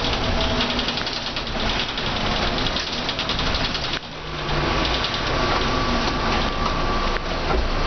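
A Mercedes O405N bus's diesel engine and drivetrain running while the bus drives on a wet road, heard from on board. About four seconds in, the sound dips suddenly and a steady whine comes in for a few seconds.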